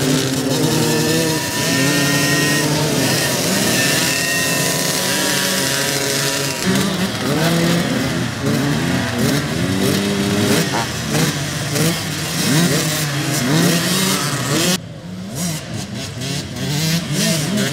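Several motocross dirt bike engines running and revving together, their pitch rising and falling over and over as the riders accelerate and ease off. About fifteen seconds in the sound drops suddenly quieter, then the revving picks up again.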